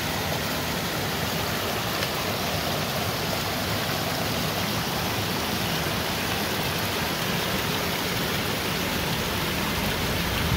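Steady rushing of flowing water, an even hiss with no change in level.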